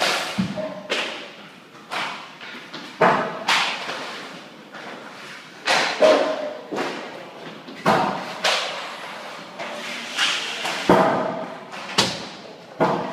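Ice hockey shots in quick succession: sharp cracks of sticks striking pucks and pucks banging into the rink boards, about one a second, echoing in a large hall.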